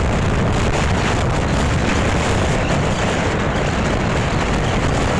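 Wind buffeting the microphone over the steady rumble of a motorcycle ride through traffic.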